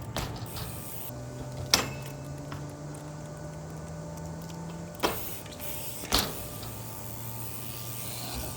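A steady low mechanical hum with four sharp knocks over it, the loudest a little under two seconds in and two more close together around five and six seconds.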